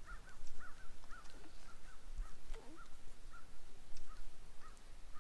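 Animal calls: a steady run of short, high, squeaky calls, about three a second.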